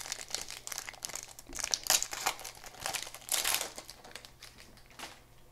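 Plastic wrapper of a 2006 Topps Opening Day baseball card pack crinkling as it is torn open and worked off the cards. It is loudest in bursts about two and three and a half seconds in, then dies away, with a single tick near the end.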